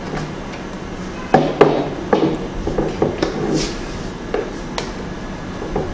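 White acrylic panels of a photo light box clacking and knocking together as they are slotted into place, with a run of irregular sharp knocks starting about a second and a half in, the first two the loudest.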